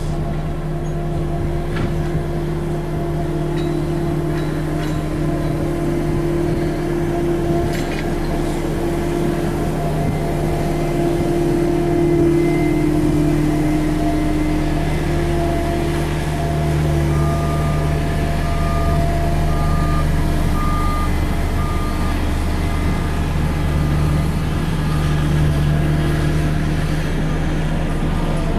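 Mini excavator's diesel engine running steadily under load while drilling soil. From about two-thirds of the way in, a reversing alarm beeps about once a second.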